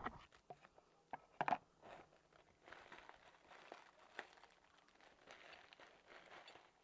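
Faint rustling and crinkling of packing material as a box is searched through, with a few sharp clicks about a second and a half in.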